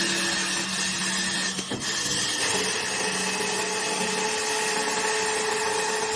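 CNC wood lathe cutting a spinning wooden blank: a steady hiss of the cutter on the wood over the whine of the machine's motors. About a second and a half in there is a brief dip with a knock, and soon after the whine settles at a slightly higher pitch.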